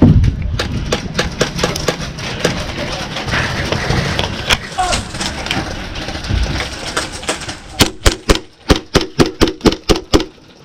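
Airsoft guns firing: scattered sharp shots, then a quick run of about six clicking shots a second near the end.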